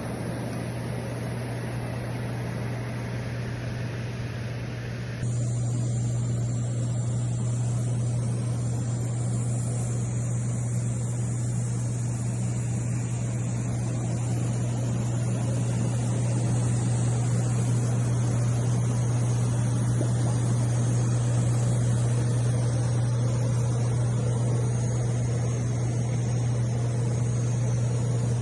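Hot tub jet pump running with a steady low hum under an even rushing water noise; the sound steps up abruptly about five seconds in.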